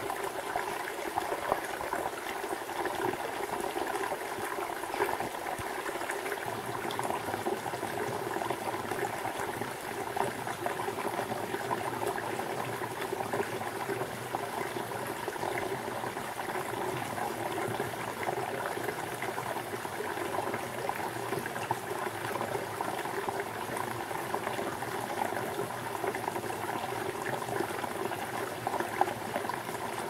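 Shallow rocky stream trickling and gurgling over stones in a steady, unbroken babble.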